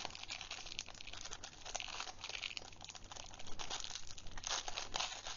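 Clear plastic sleeve crinkling as it is worked off a fountain pen by hand: a stream of small crackles that grows busier in the last couple of seconds.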